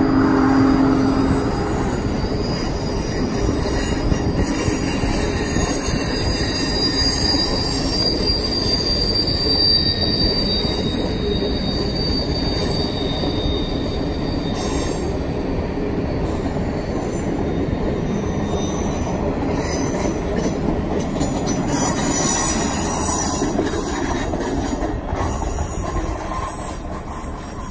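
Streamliner passenger cars rolling past on a curve: a steady rumble of steel wheels on rail with high-pitched wheel squeal coming and going as the wheels grind through the curve. A low steady tone dies away in the first second or two, and the sound fades near the end as the last car passes.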